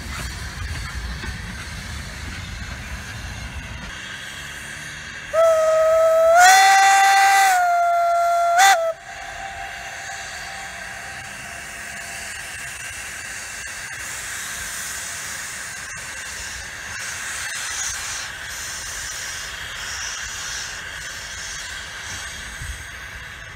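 Steam locomotive whistle blown once for about three seconds, rising slightly in pitch as it opens and ending with a short second toot. Before and after it, a steady hiss of steam as the locomotive moves off slowly, with a low rumble in the first few seconds.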